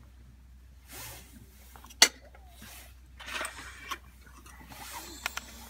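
Cookware being handled: one sharp clink about two seconds in, then scraping and a few lighter clicks.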